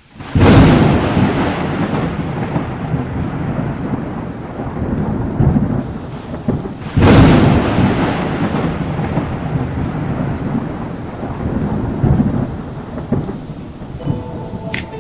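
Thunderstorm: two loud thunderclaps, one right at the start and another about seven seconds in, each rolling off into a long rumble over steady rain. Music starts up near the end.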